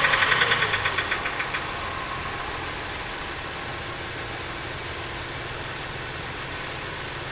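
2005 Toyota Sienna's 3.3-litre V6 idling just after a start, louder at first and settling to a steady, even idle about two seconds in. The engine is being run briefly after an oil change to circulate the fresh oil and fill the new filter.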